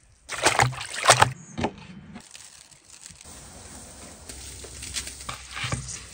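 Water sloshing and splashing, with several loud splashes in the first two seconds and quieter movement in the water after.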